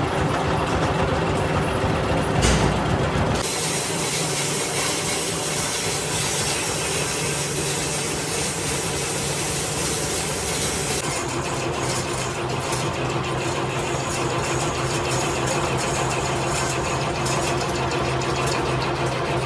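Metalworking machine tool running steadily while machining a compressor crankshaft. About three seconds in there is a brief heavier sound, then a brighter hiss that eases off about halfway through.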